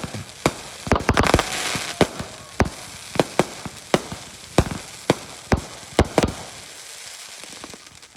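Fireworks going off in a rapid, irregular series of sharp bangs, about two a second, with a stretch of crackling about a second in; the bangs thin out near the end.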